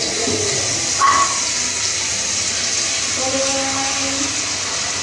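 Kitchen tap running steadily into the sink. A short pitched voice-like sound comes about three seconds in.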